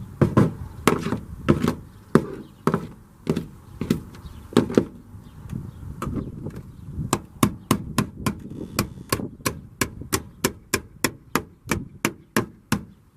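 Repeated sharp strikes on frozen asphalt sound-deadening mat stuck to a pickup's sheet-metal floor, knocking it loose: the dry ice has made it brittle, so it breaks away in big pieces. The strikes come about two a second, then quicken to about three a second from about halfway through.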